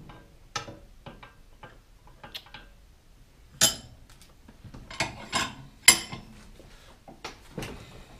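Hand tools and metal bike parts clinking and knocking against a bicycle frame clamped in a bench vise as it is stripped down. Scattered light ticks, with a few sharper metallic knocks about halfway through.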